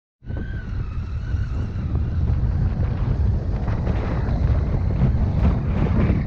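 Triumph Tiger 800's three-cylinder engine running as the motorcycle rides a gravel track, with heavy wind buffeting on the microphone over it. Scattered short clicks and knocks come from the bike moving over the rough surface.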